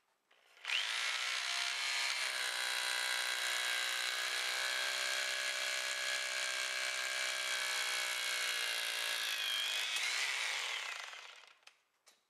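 Rotary hammer set to hammer only, with an SDS Plus I-Wedge setting tool, driving a 1/4-inch tie-wire wedge anchor up into a pre-drilled hole in a concrete ceiling. It starts suddenly about a second in, runs steadily for about ten seconds, and fades out near the end.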